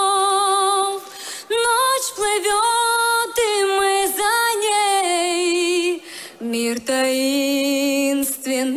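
A woman singing a slow lullaby in Russian a cappella into a microphone, with long held notes and vibrato and short breaths between phrases.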